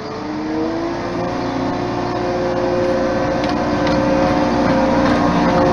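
Diesel engine of a 1931 Hudswell Clarke steam-outline diesel-hydraulic 4-6-2 miniature locomotive pulling away. Its pitch rises over the first second, then holds steady while it grows louder as it draws near.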